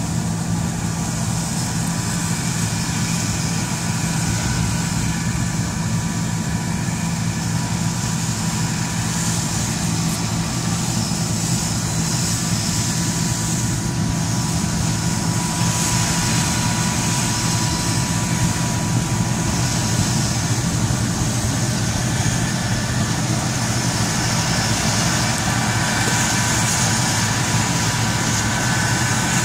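Combine harvester running steadily, a constant low diesel drone with a high whirring of its threshing and cleaning machinery over it.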